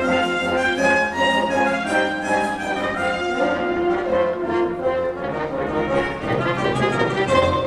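Orchestral music with brass and strings playing sustained chords.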